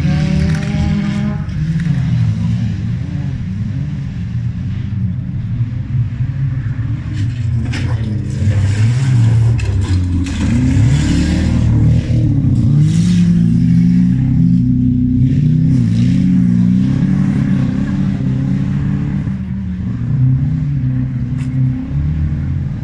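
Several old racing cars' engines revving hard on a dirt track, their pitch rising and falling as they accelerate, lift off and pass, with a few short clatters in between.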